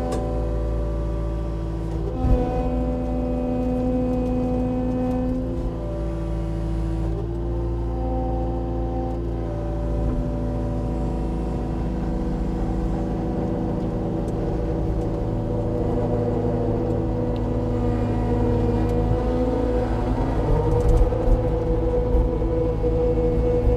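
A large engine running steadily with a low rumble, its pitch shifting now and then.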